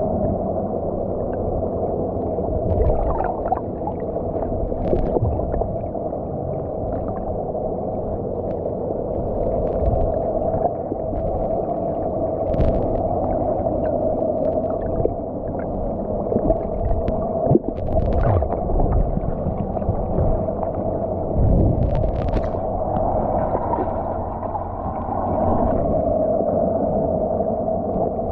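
Muffled underwater sound picked up by a camera held below the surface: a steady low drone with a constant hum, and a few short knocks and clicks.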